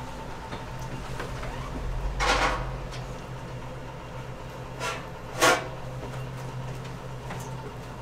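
Kitchen sounds: a steady low hum, with a half-second scrape about two seconds in and a shorter, louder clatter about five and a half seconds in.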